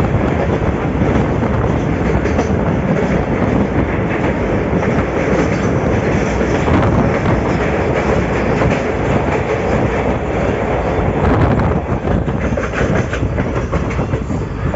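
Passenger train running at speed through a tunnel, heard from inside a coach: a loud, steady rumble of wheels on rails with clickety-clack. The din eases slightly near the end as the train comes out of the tunnel.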